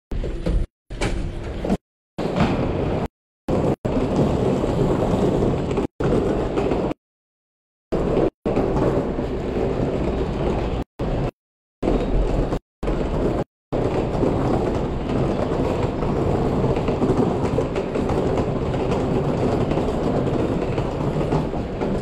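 Steady rumbling noise, heaviest in the low end, in a string of short clips that start and stop abruptly, broken by dead silences in the first half and running on unbroken for the last eight seconds.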